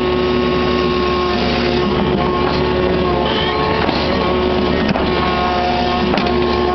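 Kubota KX61-3 mini excavator's three-cylinder diesel engine and hydraulics running under load while the machine slews with its bucket raised, with several steady whining tones over the engine.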